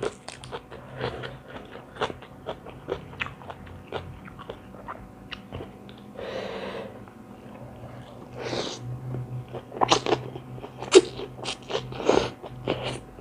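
A person chewing and crunching food close to the microphone: many crisp bites into raw vegetables, such as long beans, eaten with a noodle salad. The loudest crunches come about ten to twelve seconds in.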